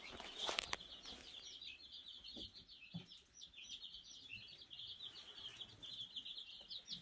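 A brooder full of baby Black Australorp chicks and broad-breasted turkey poults peeping continuously, a dense chorus of short high cheeps. A brief knock sounds about half a second in.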